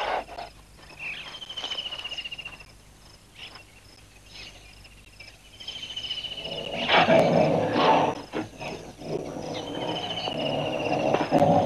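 Tigers growling while mating, faint at first and loud from about seven seconds in.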